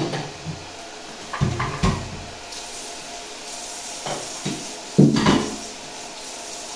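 Kitchenware clattering at a sink: a handful of separate knocks and clinks, the loudest about five seconds in, with water running from the tap.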